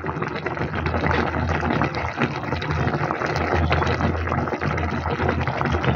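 Pot of fish-head stew simmering, the sauce bubbling with a steady rush of fine pops and crackles over a low steady hum.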